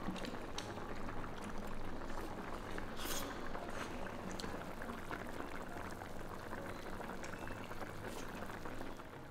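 Hot pot broth bubbling at a steady boil, with a few faint clicks.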